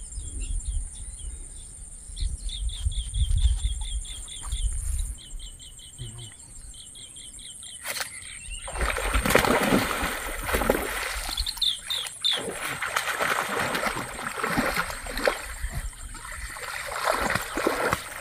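A bird calling in quick runs of short, repeated chirps over a low wind rumble. From about nine seconds in, loud, uneven splashing in shallow water as a hooked fish is fought on a rod.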